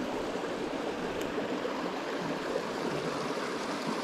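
Small mountain creek running over rocks in a shallow riffle, a steady rush of water.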